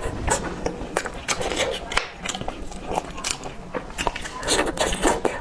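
Close-miked eating of 烫饭, rice cooked in hot soup: wet chewing and lip smacking, with many small mouth clicks and a few longer noisy slurps or breaths near the end.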